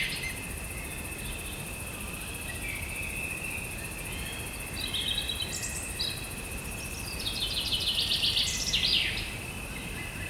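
Birds singing in rapid trilled phrases, one short run about midway and a longer, louder one near the end, over a steady high insect buzz and faint hiss.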